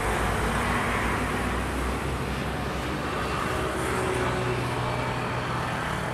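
Boeing 737 jet engines at takeoff power during the takeoff roll: a steady roar with a deep rumble.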